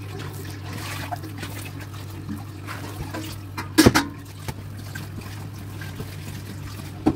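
Hands pulling soft, sticky risen yeast dough out of a plastic bowl and handling it on a silicone mat. A sharp knock about four seconds in as a bottle of oil is set down on the table, over a steady low hum.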